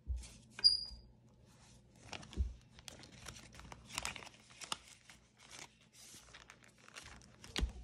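Paper bills and cash-binder envelopes being handled and sorted: irregular rustling and crinkling with light ticks, and one sharp click about half a second in.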